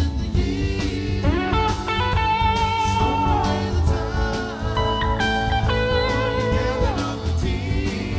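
Live band playing: a lead electric guitar holds sustained notes, some bent up in pitch, over drums, bass and cymbal hits.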